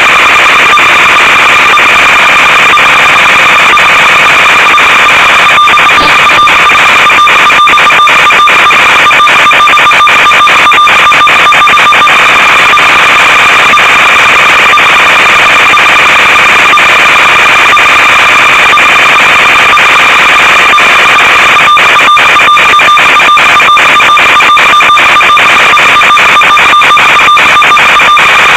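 Loud, steady electronic hiss and buzz with a constant high tone: the empty audio channel of an analog FPV video link, recorded with the goggle footage rather than any real sound. Many brief crackling dropouts break it in the middle and again near the end.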